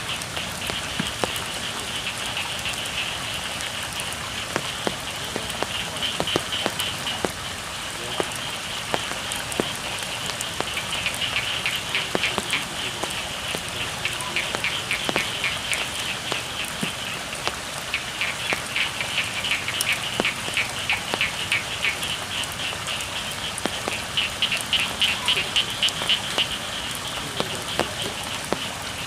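Steady rain falling, with frogs calling in repeated bouts of rapid, high-pitched pulsed trills that come and go.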